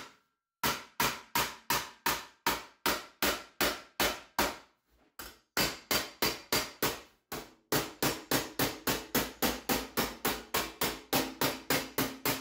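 Body hammer tapping the edge of a steel sheet clamped over an I-beam, knocking the bend flat into a sharper corner. A steady run of metal-on-metal strikes, about three a second, pauses briefly about five seconds in, then picks up to about four a second, with a low ring from the metal under the later blows.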